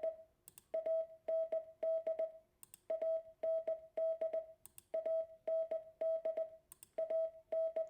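Morse code for the word "AND" (.- -. -..) sent as a steady mid-pitched beep keyed on and off in short dits and longer dahs, with a small click as each beep starts and stops. The whole word repeats about four times, roughly every two seconds.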